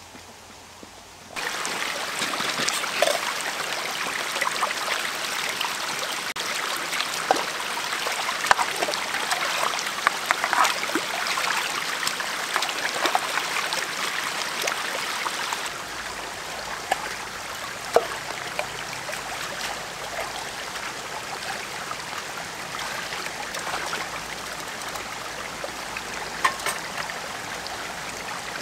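Shallow stream running and trickling over pebbles, starting about a second in, with occasional sharp splashes as a pan is rinsed in the water.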